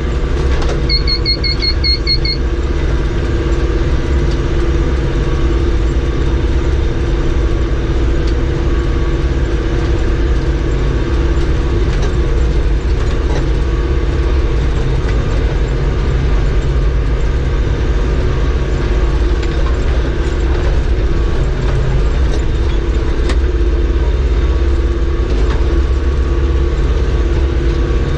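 Tractor engine running steadily under load while pulling a round baler through hay, a continuous low drone. About a second in comes a quick run of about seven short electronic beeps.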